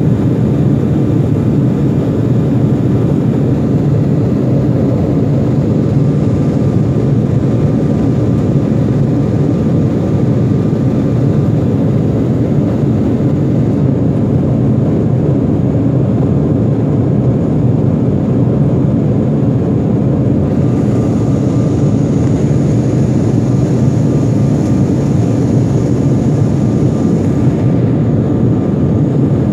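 Steady engine and rushing-air noise inside the passenger cabin of a jet airliner climbing after takeoff, deep and even throughout. A faint high whine comes in about two-thirds of the way through and stops shortly before the end.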